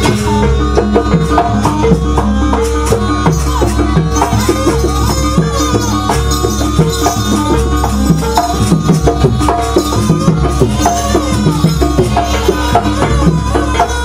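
Live jaranan accompaniment music: a gamelan-style ensemble of drums, gongs and rattling percussion playing a dense, steady rhythm, with held gong-like tones and a wavering melody line above.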